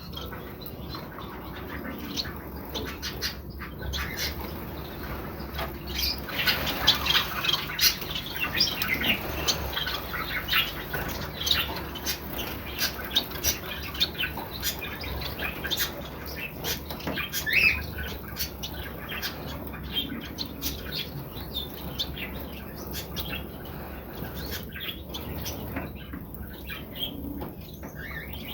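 Gouldian finches and society finches bathing, with a busy patter of splashing and wing-fluttering and frequent short chirps and calls.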